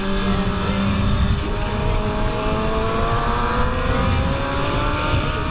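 600cc inline-four sport bike engine pulling hard, its pitch rising slowly as the bike accelerates, over heavy wind rumble on the microphone.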